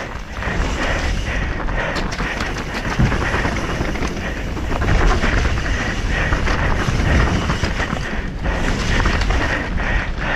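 Wind rushing over the action camera's microphone as a mountain bike descends a wet dirt trail, with the tyres rolling and the bike rattling and knocking over bumps.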